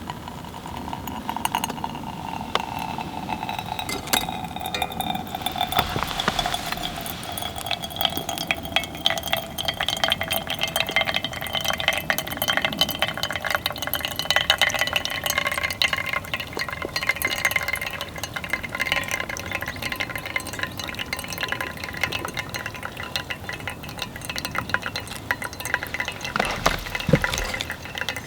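Clinking and stirring of a utensil in cookware, many small clicks over a faint liquid sizzle, with a steady tone that slowly drops in pitch over the first several seconds.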